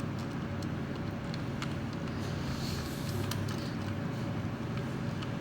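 Slow, irregular keystrokes on a computer keyboard, a faint click about once a second, over a steady low background hum.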